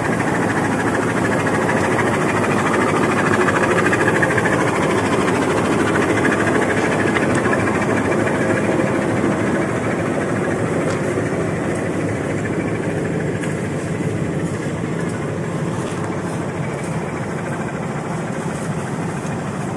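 Bangladesh Railway diesel locomotive's engine running close by: a steady, dense engine noise that eases a little over the second half.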